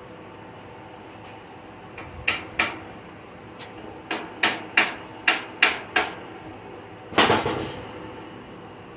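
Hammer blows on metal: two strikes, then a run of six evenly spaced strikes at about three a second, then a heavier blow with a brief rattle near the end.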